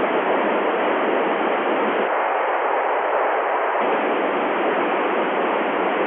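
Steady FM radio hiss from the LAPAN satellite's FM repeater downlink on 435.880 MHz, with no voice on it. The hiss changes slightly in tone about two seconds in and again near four seconds.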